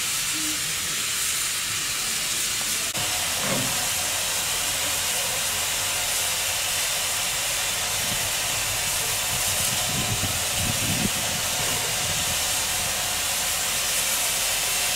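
Steady hiss of steam escaping from Caledonian Railway No.419, a steam tank locomotive standing at rest.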